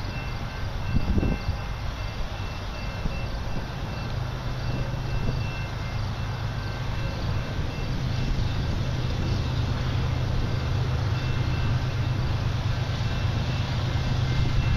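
Diesel locomotives of an approaching freight train, heard at a distance as a low steady rumble that slowly grows louder. A few thin, steady high tones from insects trill over it.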